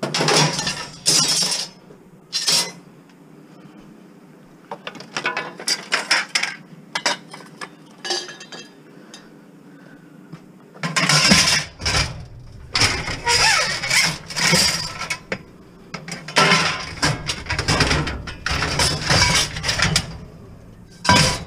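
Scrap metal clanking, rattling and scraping as long metal pipes are shoved into a van's cargo area packed with appliance cabinets and a metal rack. It comes in several bursts with short pauses, heaviest in the second half.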